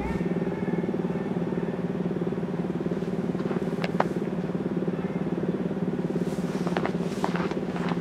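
An engine idling steadily: an even low hum with a fast pulse that holds one pitch, with a few sharp clicks partway through.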